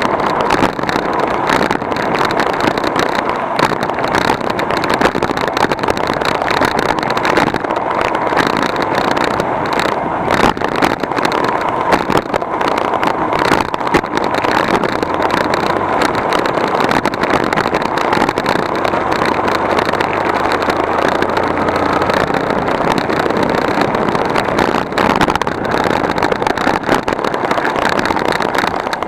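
A vehicle travelling along with steady engine and road noise and frequent small knocks and rattles.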